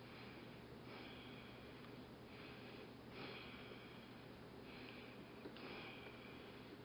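Faint scraping strokes of a small hand carving tool on a piece of wooden tongue depressor, several short strokes about a second apart, over a low steady hum.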